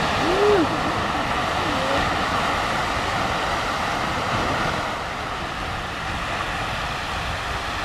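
Riverside Geyser erupting: a steady rushing hiss of water and steam jetting from its vent over the river.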